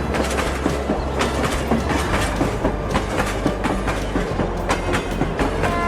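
Train running along the track: clickety-clack of wheels over rail joints over a steady low rumble.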